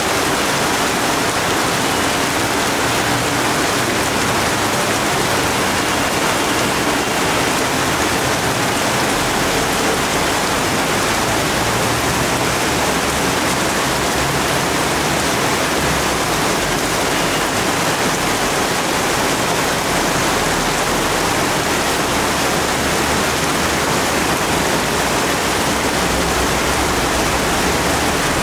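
Heavy downpour of rain falling on leafy trees and shrubs, a steady, even hiss that holds unchanged throughout.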